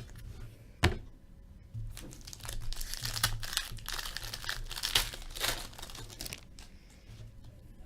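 Foil wrapper of a pack of hockey trading cards crinkling as it is torn open and handled, a dense irregular crackle lasting several seconds after a single sharp click about a second in.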